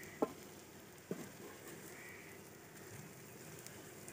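Faint sizzling of chicken liver in a wide iron pan over a wood fire, with two soft knocks about a second apart near the start as utensils touch the pan while coriander and green chillies are sprinkled in.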